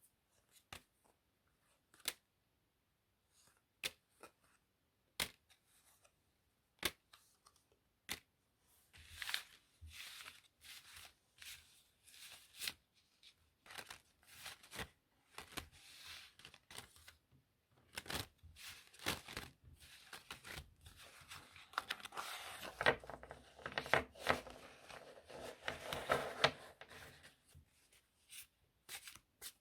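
Playing cards being handled. For the first several seconds there are scattered single clicks and taps. From about nine seconds in comes a long run of dense shuffling and rustling, busiest in the last third, before it thins back to scattered clicks near the end.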